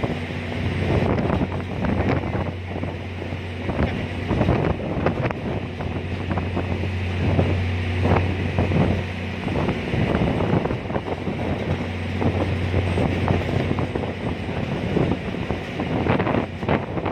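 Wind buffeting the microphone in irregular gusts over the steady low drone of a ferry's engine.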